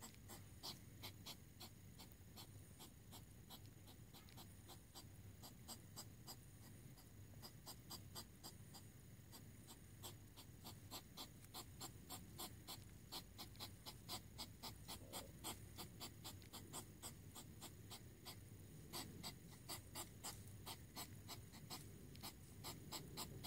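Hedgehog courtship huffing: the female puffs and snorts in short, rhythmic huffs, about three a second, at the male circling her, a little stronger in the second half.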